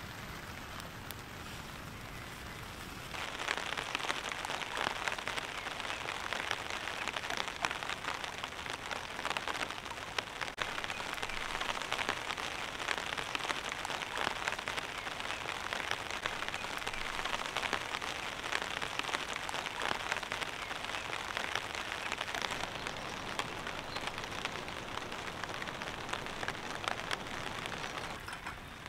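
Rain falling on a tarp shelter overhead, a dense stream of drop strikes. It becomes clearly louder about three seconds in and eases back near the end.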